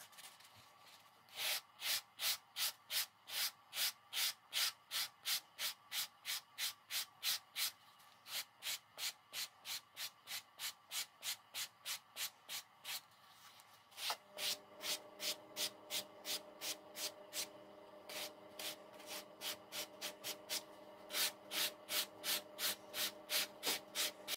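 Sanding sponge rubbed back and forth along the edge of a leather knife sheath, quick even strokes about three a second, with a couple of brief pauses.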